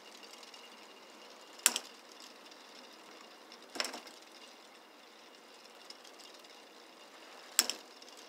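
A solar-powered K'Nex ball machine running, its plastic mechanism giving a faint steady rattle. Three sharp plastic clacks come from the machine: about a second and a half in, near four seconds, and a double one near the end.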